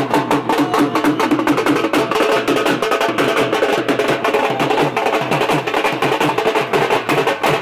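Dhol drums beaten fast with sticks: a loud, rapid, steady drumming rhythm.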